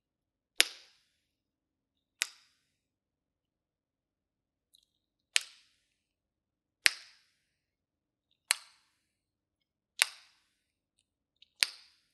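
Loud tongue clicks, the tongue snapped down off the roof of the mouth: seven single sharp clicks about one and a half seconds apart, with a longer pause after the second. They are repetitions of a swallowing-therapy exercise that strengthens the middle of the tongue.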